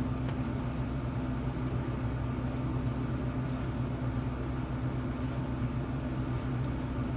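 A steady low hum with an even, unchanging level: background room noise from a running motor or appliance.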